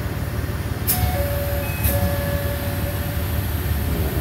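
Ise-III type diesel railcar idling with a steady low rumble, heard from inside the car. About a second in, a two-note falling chime sounds twice, the second time held longer, as the train gets ready to depart.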